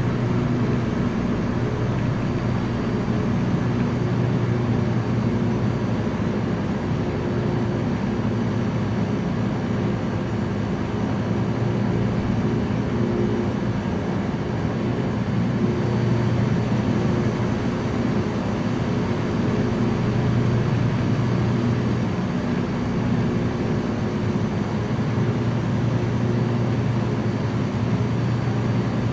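Small light aircraft's engine and propeller running steadily in cruise: a constant loud drone.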